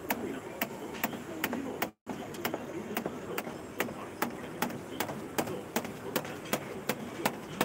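Metal dough cutter chopping youtiao dough into strips on a stainless-steel counter: sharp, even knocks about three a second, over a steady sizzle of dough frying in oil. The sound cuts out for an instant about two seconds in.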